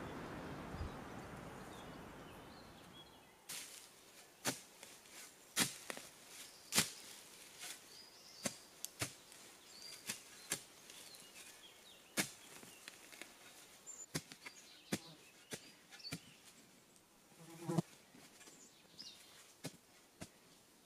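A soft rushing hiss fades out over the first three seconds. Then comes a run of sharp knocks and cracks at irregular intervals, about one every half second to second, from a hand tool worked into the soil and roots of a post hole. Faint high chirps sound between them.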